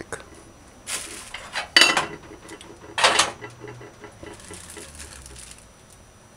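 Kitchen utensils and dishes clinking and knocking: three sharp clatters about one, two and three seconds in, the middle one loudest, then only faint handling sounds.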